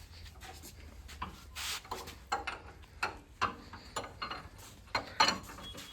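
Scattered light metal clicks and knocks at irregular intervals, from tools and loose metal parts being handled while a tractor's wheel is taken off.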